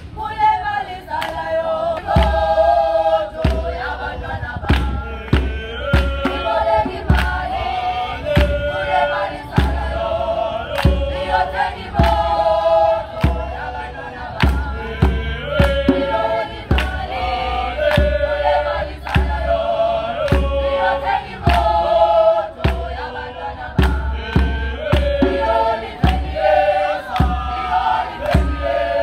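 A group of young South African street singers singing together a cappella in several-part harmony. From about two seconds in, a steady beat of hand claps runs under the singing, about one or two a second.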